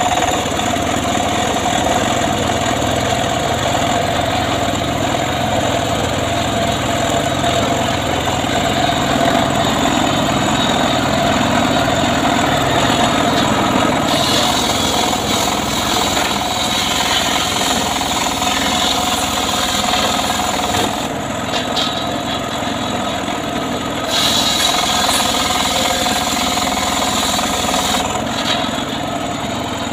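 Engine of a homemade portable sawmill (gergaji srekel) running steadily, with a constant whine over a dense mechanical noise. Its loudness dips slightly for a few seconds past the middle and again near the end.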